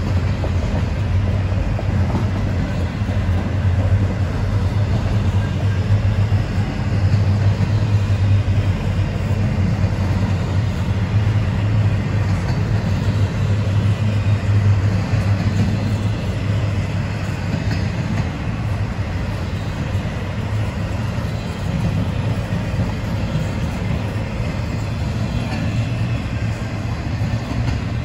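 Intermodal freight cars carrying trailers and containers rolling past: a steady low rumble of steel wheels on the rails.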